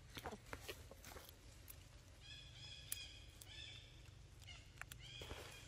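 Faint high-pitched animal calls: a quick run of short repeated notes about two seconds in and a single downward-bending call near the end, with a few sharp clicks in the first second or so.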